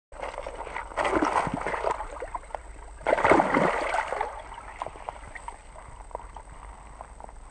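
Water splashing in a slushy ice-fishing hole as a largemouth bass is released and swims off: a splashy burst about a second in and a louder one about three seconds in, then softer sloshing that fades.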